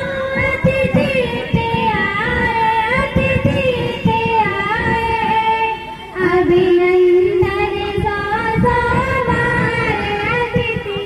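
Girls singing a song into handheld microphones, holding long notes that slide between pitches, with a short break for breath about six seconds in.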